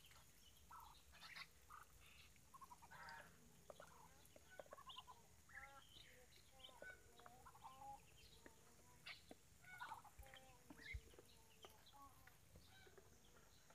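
Faint sounds of a flock of Muscovy ducks feeding at a tub of maggot-and-rice mash: soft, short calls and small pecking clicks scattered throughout.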